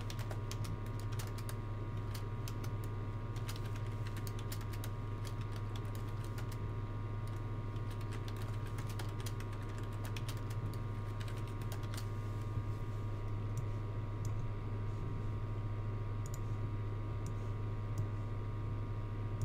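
Typing on a computer keyboard: irregular runs of keystrokes that thin out to scattered clicks in the last several seconds, over a steady low electrical hum.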